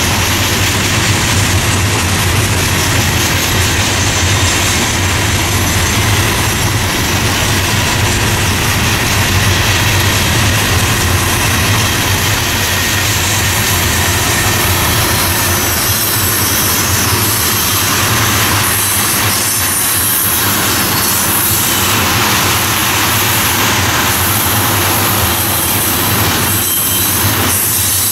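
Train cars rolling past on the rails, a loud, steady wheel-and-rail noise with a low drone underneath.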